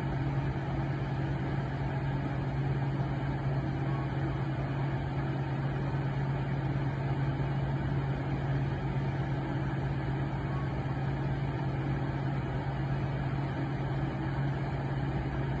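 Idling engine running with a steady, unchanging low hum.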